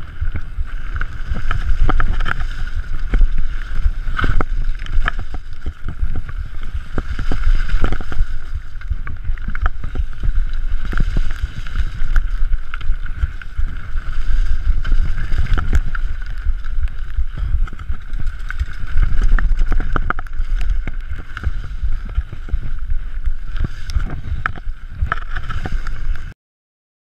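Mountain bike descending a rough, muddy dirt trail at speed, heard from a camera mounted on the bike: wind buffeting the microphone with a low rumble, many sharp rattles and knocks as the bike hits roots and ruts, and a steady high buzz over it all. The sound cuts off suddenly near the end.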